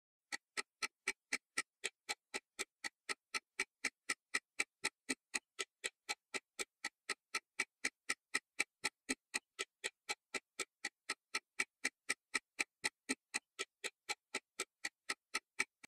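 Countdown-timer ticking sound effect: clock-like ticks, about four a second, evenly spaced and unchanging, marking the seconds left to answer.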